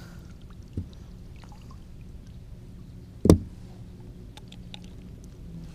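A steady low hum with one sharp, loud knock about three seconds in and a smaller knock near the start, plus a few faint ticks, while a landed northern pike is handled over a boat's gunwale.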